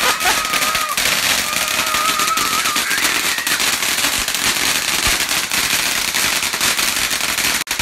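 Ground-level fireworks crackling and popping rapidly without a break, cutting off suddenly near the end.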